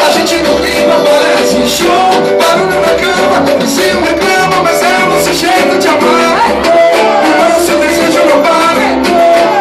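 A band playing a song live, with a steady beat and a melodic lead line.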